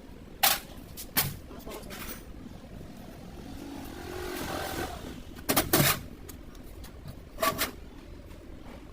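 Sharp knocks and clanks, about five in all and a second or more apart, with two close together past the middle; a noise swells and fades between them.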